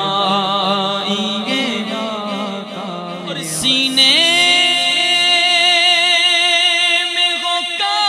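Male voice singing an Urdu naat in a melismatic, chant-like style over a low steady drone. About four seconds in, the voice rises and holds one long high note with a slow vibrato.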